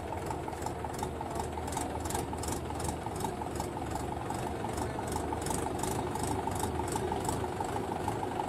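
Mahindra 475 DI tractor's three-cylinder diesel engine running steadily at low speed under load while hauling a fully loaded trolley, growing slightly louder as it comes closer.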